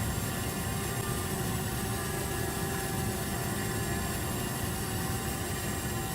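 Hubsan ZINO Mini Pro drone in flight: its propellers hum steadily with a constant multi-tone whine over a noisy rush.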